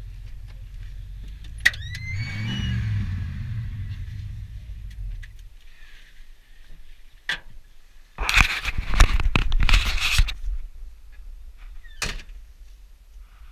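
Ford F-150 pickup engine running, briefly revving, then shut off about five and a half seconds in. Then a click and a loud stretch of scuffling and knocks as the cab door is opened and someone climbs out, with another click near the end.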